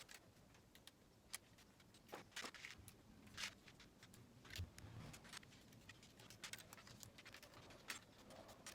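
Faint, scattered clicks and light rattles of plastic Lego bricks being handled and pressed together, at irregular intervals.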